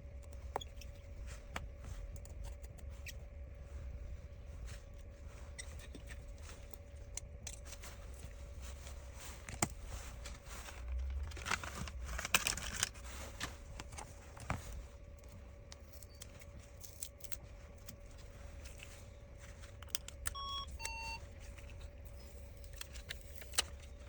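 Small metal repair tools clicking and tapping on smartphone parts, busiest about eleven to thirteen seconds in, over a faint steady hum. A short two-note electronic beep sounds about twenty seconds in.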